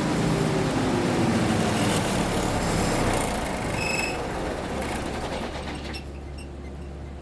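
Six-cylinder diesel engine of an MEP-006A 60 kW military generator shutting down, its pitch falling as it coasts to a stop over the first few seconds. A short high beep comes about four seconds in, and a low steady hum is left at the end.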